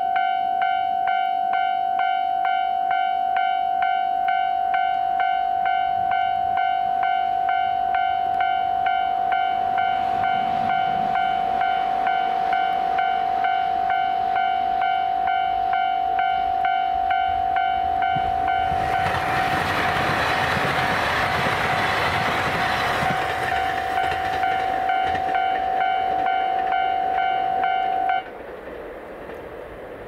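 Japanese level-crossing warning bell ringing steadily at about two strokes a second. A diesel train rushes past over the crossing for several seconds about two-thirds of the way through, and the bell cuts off suddenly near the end.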